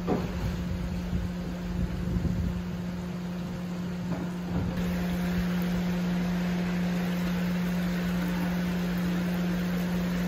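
A steady, low machine hum throughout. In the first couple of seconds there are uneven splashes of water as a plastic basin is tipped out onto the concrete.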